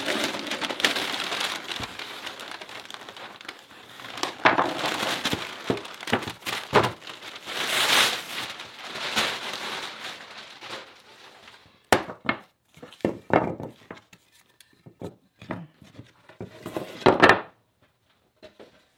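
Rustling and crinkling of material being handled, then a run of scattered knocks and short scrapes as a glued-up wooden piece is handled.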